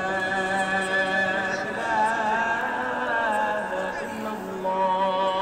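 Music: a voice singing long held notes over a steady low tone, with a brief pause about four seconds in.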